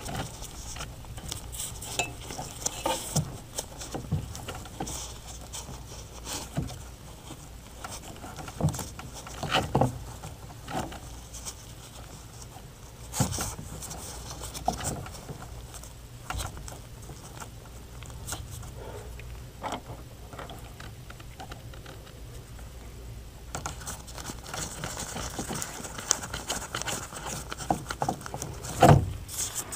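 Gloved hands twisting electrical wires together and fitting plastic wire nuts: scattered small clicks, taps and rustles, over a low steady hum. The rustling grows busier near the end.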